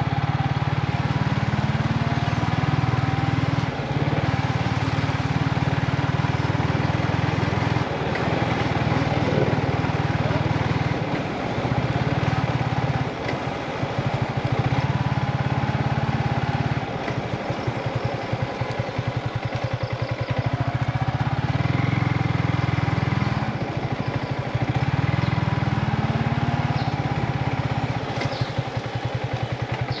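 Yamaha MT-15's 155 cc single-cylinder engine heard from the rider's seat, running at low road speed: the throttle eases off and picks up again several times, with a few short rising revs, and the note turns choppier near the end as the bike slows.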